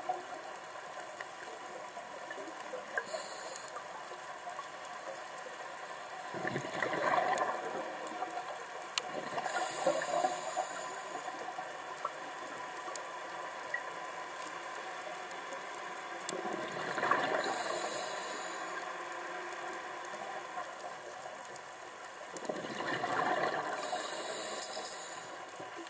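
Scuba diver breathing through a regulator underwater: a hiss on each inhale and a bubbling rush on each exhale, several breaths a few seconds apart, over faint scattered clicking.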